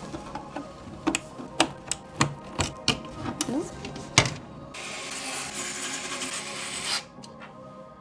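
Irregular clicks and knocks from handling a modular PC power supply and case hardware, then about two seconds of steady hiss that cuts off suddenly.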